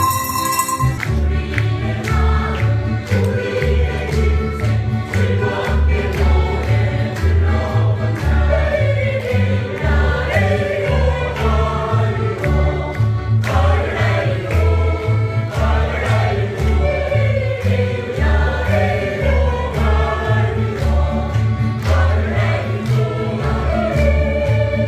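A group of older amateur singers singing together in chorus over accompaniment with a steady bass beat, starting about a second in.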